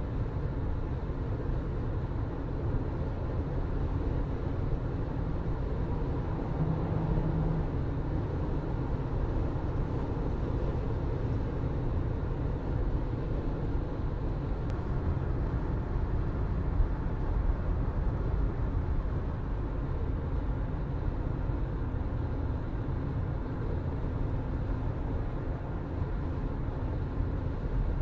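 A car driving at a steady speed: a low, even rumble of engine hum and tyre and road noise.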